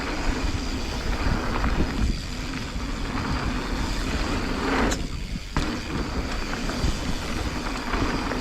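Mountain bike riding fast down a dirt singletrack: tyres on dirt, frame and chain rattling over the bumps, with wind rumbling on the microphone. About five seconds in, the noise drops out for about half a second and comes back with a sharp knock.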